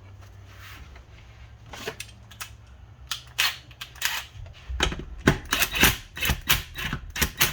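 Ratchet wrench clicking in quick irregular runs as a plug is run down and snugged into the transmission case, growing louder and faster from about halfway through.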